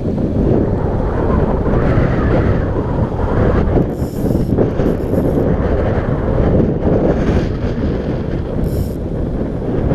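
Wind buffeting the camera microphone over the steady rush of a fast river, with a few brief higher hisses, about four seconds in, about five seconds in and near the end.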